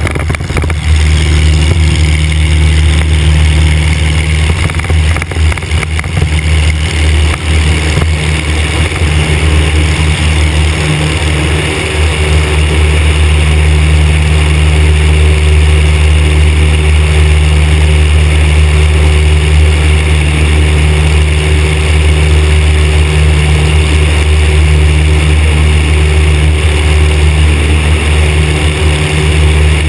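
Van's RV-4 light aircraft's piston engine and propeller at takeoff power, steady and loud, with wind rushing over the microphone. The engine comes up to full power about a second in and holds steady through the takeoff roll and climb-out.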